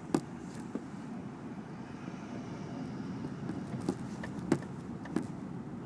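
Steady low rumble of a car moving slowly in traffic, heard from inside the cabin. A few short, sharp clicks or knocks sound over it, the loudest about four and a half seconds in.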